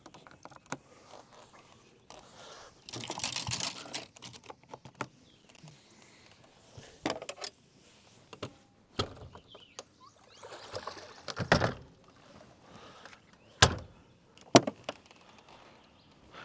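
Rods and tackle being handled on the front deck of an aluminum bass boat: scattered knocks, clicks and rustling, with two sharp clicks near the end the loudest.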